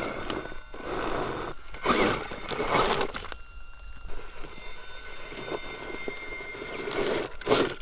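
Axial RBX10 Ryft RC rock bouncer crawling over loose quarry rocks: its Castle sensored brushless motor whines faintly while the tyres scrabble and slip, with scraping and clattering of rock in a few louder bursts. The slipping tyres are wheel spin, which the driver puts down to open front and rear diffs on slow technical terrain.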